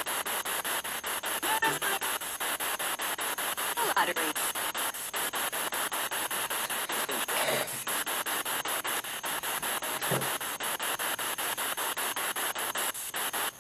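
Spirit box sweeping through radio stations, played through a Bluetooth speaker: a steady hiss of static chopped into rapid, even clicks, with short scraps of broadcast voices breaking through now and then. One scrap is taken by the uploader for a spirit answering 'yes friend'.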